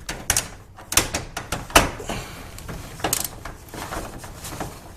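Irregular metallic clicks and knocks from a socket wrench being worked on a garage door hinge screw. The sharpest knock comes a little under two seconds in.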